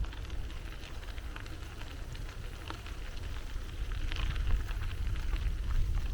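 Low rumble of wind buffeting the microphone during a bicycle ride, with scattered light crackling and ticking from the bike rolling along the path, a little louder in the second half.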